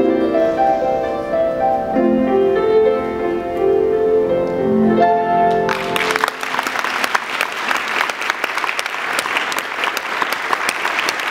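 Piano playing the last held chords of the song's accompaniment, then audience applause breaking out about halfway through and carrying on.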